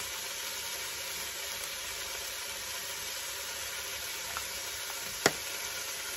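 Chopped onions, celery and red peppers sizzling steadily as they fry in a cast-iron casserole, the spices just going in. A single sharp click about five seconds in, with a fainter tick just before it.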